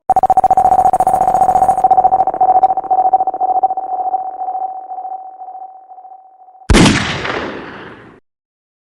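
Dancehall DJ sound effects: a steady beep tone, like a telephone dial tone, fading out over about six seconds. Then a sudden loud blast that sweeps down in pitch, dies away over about a second and a half and cuts off.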